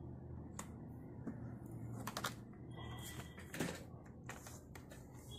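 Scattered plastic clicks and knocks as a laptop's closed body is handled and turned over, over a steady low hum.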